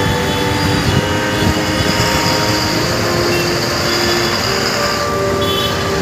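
A fire engine's engine running close by, with steady street traffic noise around it.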